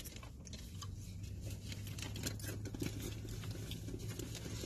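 Soft rustling and crinkling of a plastic kite and its packaging being handled, with small scattered clicks, over a low steady hum inside the car.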